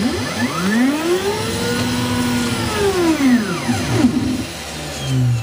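The OX CNC machine's motors whine, their pitch rising to a peak about two seconds in and falling back again. Near the end a low hum drops in pitch as the machine winds down and powers off.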